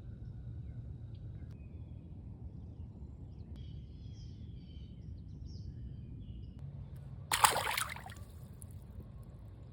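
Outdoor ambience at the water: a steady low rumble with faint bird chirps. About seven seconds in comes one brief, loud splash in the water.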